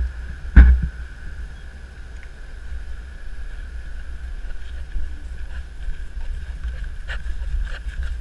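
Wind and handling rumble on a GoPro camera moving low over the grass, with a faint steady high tone. There is a loud knock about half a second in and a few light taps near the end.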